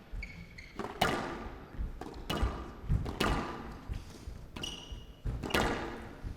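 Squash rally: the ball cracks off rackets and walls about once a second, each hit echoing in the hall, with a couple of short high squeaks from players' shoes on the court floor.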